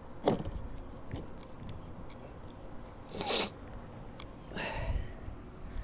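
Handling noises as sealed lead-acid batteries are pressed into a plastic mower battery bay: a sharp knock about a quarter second in, then two short rasping scrapes around three and four and a half seconds in.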